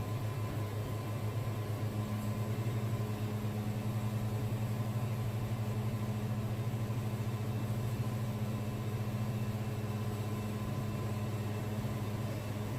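Wood-Mizer band sawmill's engine running with a steady, even hum.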